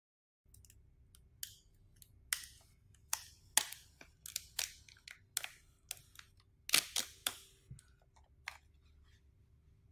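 Clear plastic protective film being peeled off a new smartphone, with a dozen or so sharp, irregular crackles and clicks from the film and the handling of the phone. A faint steady hum lies underneath.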